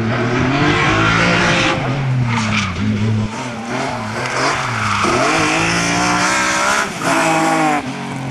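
BMW E46 3 Series rally car's engine at full song, its revs climbing and dropping over and over through gear changes, with tyres sliding on the stage surface. The sound changes abruptly a few times.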